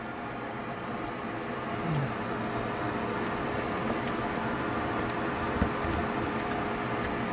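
Steady mechanical hum, a little louder from about two seconds in, with a few faint clicks.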